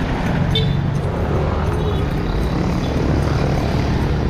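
Motor vehicle engine running steadily, a low even drone, with street traffic noise around it.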